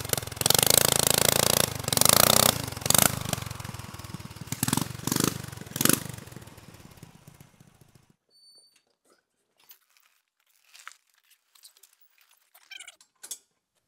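Off-road go-kart's engine running hard as the kart drives off, with several sharp cracks over the engine noise, fading as it moves away. About eight seconds in it cuts off abruptly to quiet with only a few faint clicks.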